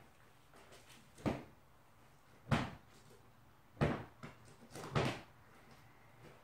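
Four knocks about a second apart, the middle two the loudest, from household objects being handled.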